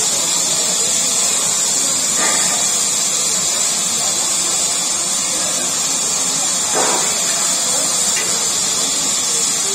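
A steady, loud hiss, strongest high up, with a few faint voices of people nearby twice.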